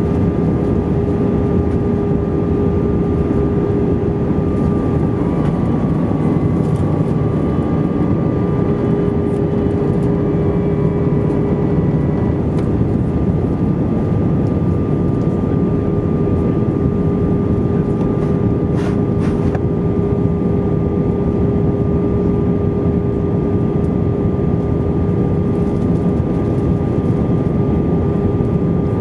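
Cabin noise inside an Airbus A320 descending on approach: the steady drone of the engines and airflow, with a constant hum tone running through it.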